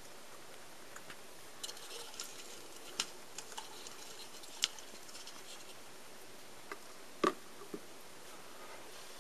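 Small, scattered ticks and short rustles from a leopard gecko feeding on crickets in its enclosure, over a faint steady hiss. The loudest tick comes about seven seconds in.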